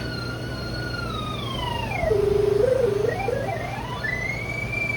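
Electronic whistling tone of a pipe locator receiver tracking a sonde in the drain line. The pitch holds, slides down to a low wobble about two seconds in, then climbs again toward the end, the pitch showing how close the receiver is to the sonde. A steady low hum runs underneath.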